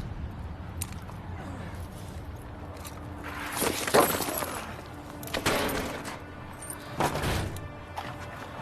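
Film soundtrack: a low steady music drone with three sudden crash-like impacts, the loudest about four seconds in, the others at about five and a half and seven seconds.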